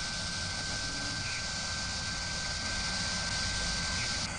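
Machining sound effect of a milling spindle cutting metal: a steady hiss with a constant high whine, which drops away suddenly near the end.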